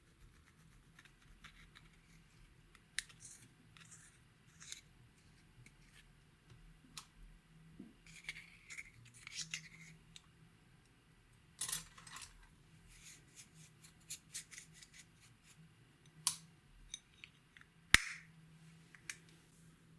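Slime and makeup being handled: scattered sharp clicks and short crackly scrapes, with one louder sharp click near the end.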